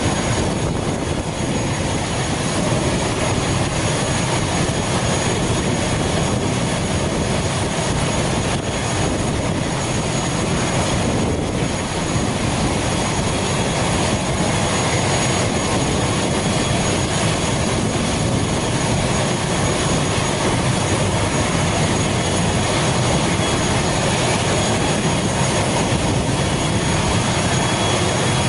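ATR 72 turboprop's engine running steadily on the ground: a constant turbine whine with thin high tones over a broad, even rush.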